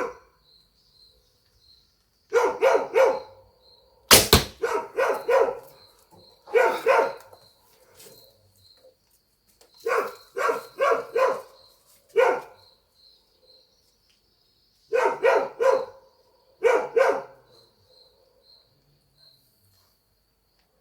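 Dogs barking in repeated bursts of two to four quick barks, about seven bursts in all. One sharp crack about four seconds in is the loudest sound.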